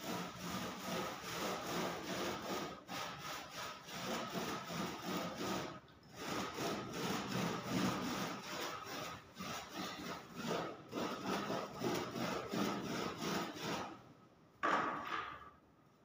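Quick back-and-forth rubbing strokes of a hand-held polishing applicator on a wooden door, working polish into the wood. The strokes pause briefly about six seconds in and trail off near the end after one last louder stroke.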